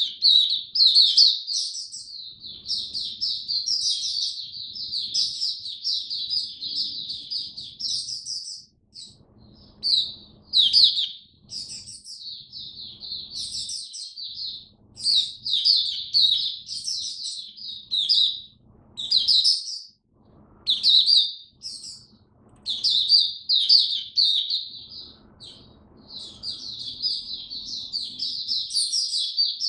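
White-eye singing: a long, rapid, high-pitched twittering warble, broken by a few short pauses.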